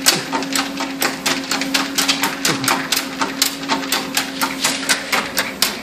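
A pug's paws tapping quickly on a running treadmill belt, about five or six taps a second, over the steady hum of the treadmill's motor.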